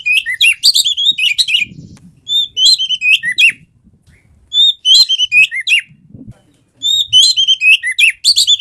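Oriental magpie-robin (kacer) singing loud, rapid whistled phrases, one burst about every two seconds with short pauses between. This is the lively full song of a bird 'gacor', in top singing form.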